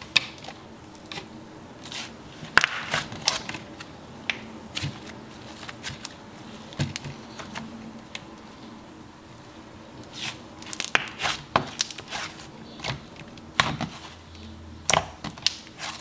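Soft, stretchy slime being pressed and squished by fingers, giving irregular wet clicks, pops and crackles, thicker in bunches a few seconds in and again in the second half.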